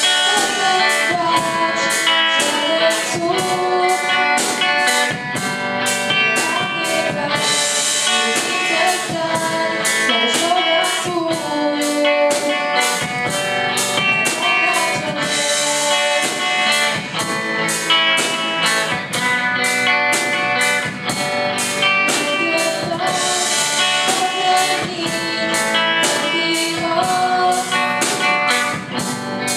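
A girl singing a rock song with electric guitars and a drum kit keeping a steady beat.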